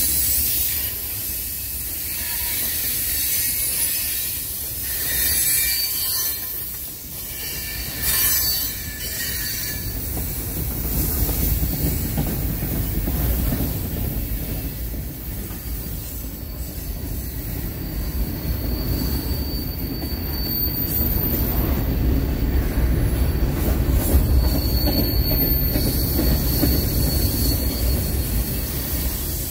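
Freight cars of a long mixed freight train rolling past on jointed steel rails: a continuous low rumble of wheels on rail, louder in the second half. A thin, high wheel squeal comes and goes several times toward the end.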